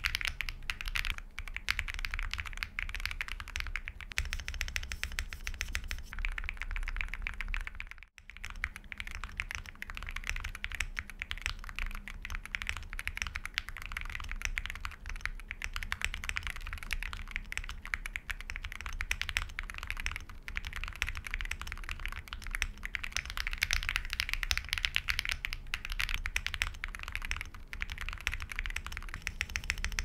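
Fast continuous typing on a Monka 6067 aluminium gasket-mount keyboard with PBT Cherry-profile keycaps, a dense run of key clacks. It starts on Sillyworks Hyacinth V2U linear switches and, after a brief break about eight seconds in, goes on with Gateron Milky Red linear switches.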